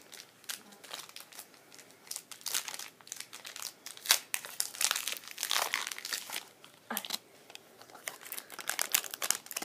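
Crinkling and tearing of a football card pack's wrapper as it is opened by hand, in irregular bursts.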